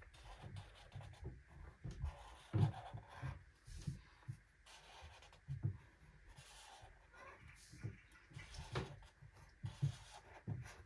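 Felt-tip marker rubbing and scratching on paper in short, irregular strokes as rectangles are drawn, with a few soft thumps of the hand or pen against the pad.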